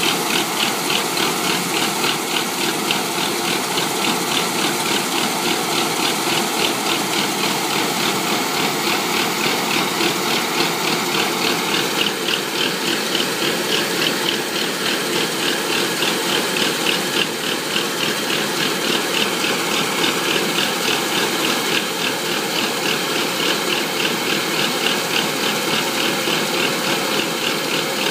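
Rice combine harvester running steadily under work, its engine and threshing machinery making a continuous mechanical din with a fast, even clatter.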